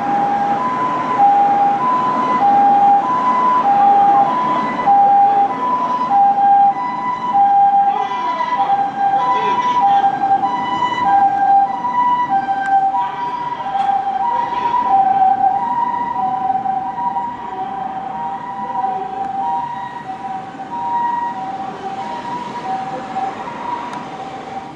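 Japanese ambulance 'comfort siren' sounding on an emergency run: a high and a low tone alternating steadily, over road traffic noise. It grows fainter through the second half as the ambulance moves away.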